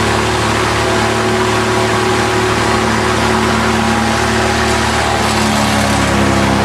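Suzuki 1300 aircraft-conversion engine on a trike, run steadily at full throttle at about 4800 rpm and turning a 171 cm propeller through a 1:3 reduction drive. The propeller's coarse pitch setting holds the engine to about 4800 rpm at full throttle.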